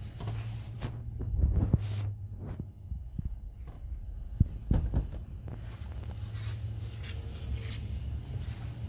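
Handling noise from a handheld camera moving about inside a car's cabin: a steady low hum with rumbling bumps and a few sharp knocks, the sharpest about four and a half seconds in.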